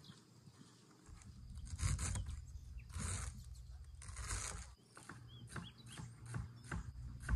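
Chef's knife chopping callaloo leaves on a thick wooden cutting board: a steady run of knocks about three a second in the second half. Before that, the leaves rustle as they are handled, over a low rumble.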